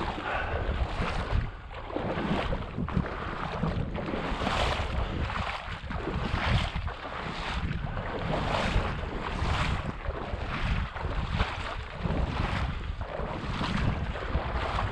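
Someone wading through shallow marsh water, sloshing steps about once a second, with wind rumbling on the microphone.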